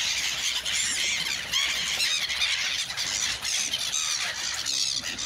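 A large flock of gulls calling over one another in a constant screeching clamour, many short high calls overlapping. The birds are mobbing people who are throwing them bread.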